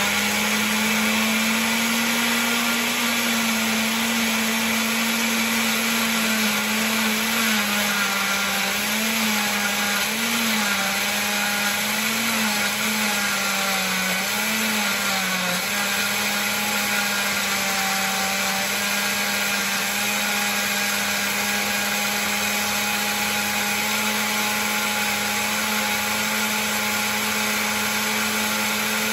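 Countertop blender motor running, puréeing a habanero-mango mayonnaise sauce. Its pitch wavers and dips several times in the middle while the chunks of mango and chilies are still being broken up, then holds steady as the sauce turns smooth.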